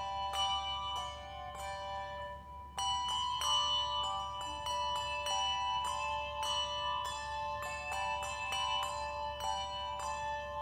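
Handbell choir playing: several handbells struck together in chords, their tones ringing on and overlapping. There is a short lull a little under three seconds in, then the bells come back in fuller.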